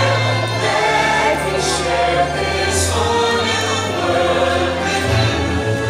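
Fireworks-show soundtrack music with a choir singing over held bass notes.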